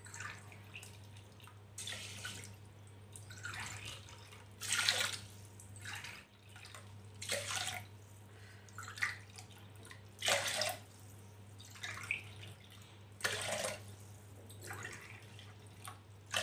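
Water poured from a steel tumbler into a pressure cooker of rice and moong dal, glass after glass: a series of short splashing pours every second or two. A steady low hum runs underneath.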